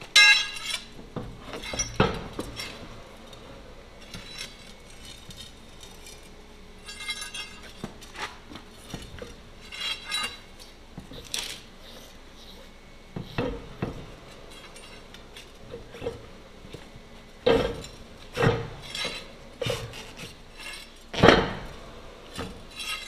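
Irregular metal clanks and clinks as a heavy aluminium truck wheel and tyre are worked onto the steer-axle hub, some strikes ringing briefly. The loudest clanks come right at the start and about 21 seconds in.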